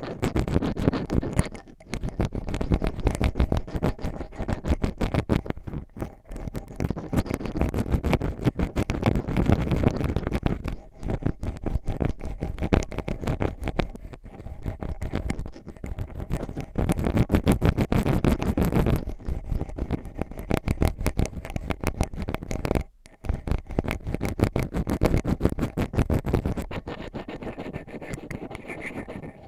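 Ear pick scraping and scratching in rapid, close-packed strokes. The strokes come in runs of a few seconds, with short pauses between runs.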